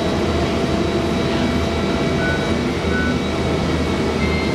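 Cabin noise of a moving transit bus: a steady low engine drone under an even rushing road noise.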